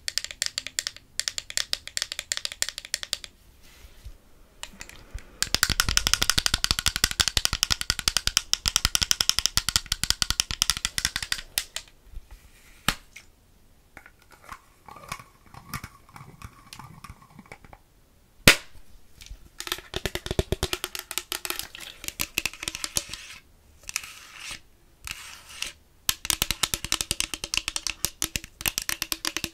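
Rapid, light fingernail tapping close to a microphone: long acrylic nails clicking on a glass fragrance-mist bottle and on the metal mesh grille of a Blue Yeti microphone. The tapping comes in dense runs with sparser stretches between them, and one sharper, louder tap comes about two-thirds of the way through.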